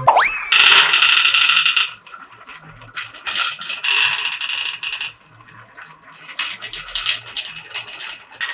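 Blue and green balls rattling and clicking as they roll along a wavy groove cut in a wooden track, in three spells of dense clatter with lighter clicking between. A falling whistle-like glide at the very start.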